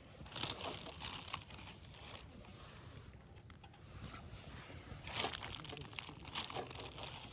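Crinkling and rustling of packaging being handled, in two short bouts with small clicks: one just after the start and one about five seconds in.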